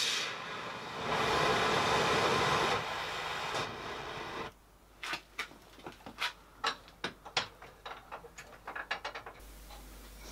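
Oxy-propane torch hissing while it heats a steel bracket joint for silver soldering, then stopping abruptly about four and a half seconds in. A run of irregular sharp ticks and clicks follows for several seconds.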